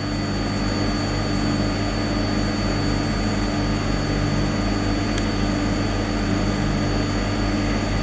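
Steady hum of running refrigeration machinery in an ice-cream workshop, with a constant high whine over it; a brief tick about five seconds in.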